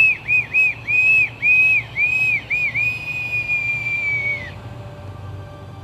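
Boatswain's call (bosun's pipe) being piped: a run of short, shrill rising-and-falling notes, then one long held note that drops away and stops about four and a half seconds in.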